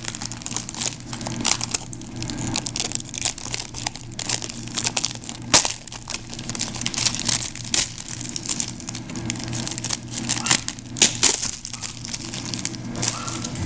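Clear plastic shrink-wrap being peeled off a DVD box set and crumpled in the hands: a continuous stream of irregular crinkles and crackles.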